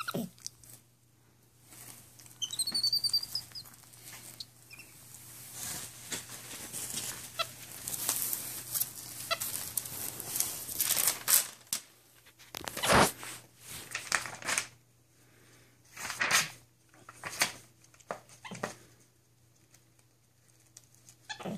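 Glossy catalog pages rustling, crinkling and flapping as a capuchin monkey handles and turns them on bedsheets, with a long stretch of rustling in the middle and several sharp page flaps later on. A brief high squeak sounds about three seconds in.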